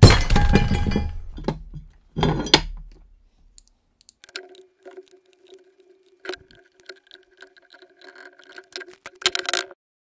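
A heavy drilled aluminium fixture plate clattering loudly as it is set down and shifted on a wooden workbench, twice in the first three seconds. This is followed by light metallic clicks and clinks as a hex key loosens the small #4-40 screws holding the titanium handle pieces, with a quick burst of clinks near the end.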